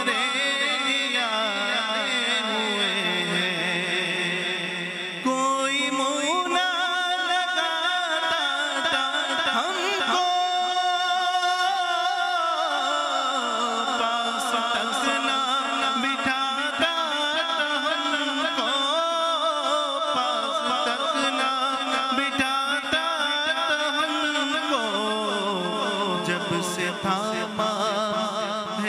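Naat music interlude: layered voices chanting and humming a wavering melody over a steady high tone, with an abrupt shift in the vocal texture about five seconds in.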